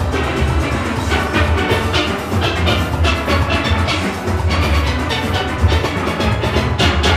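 Recorded steel orchestra music: many steelpans playing together over a strong bass and percussion, with a steady beat.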